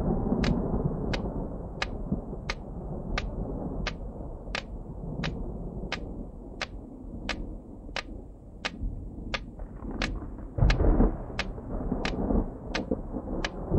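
Sharp clicks at an even pace, about three every two seconds, over a low rumbling drone that swells briefly near the end.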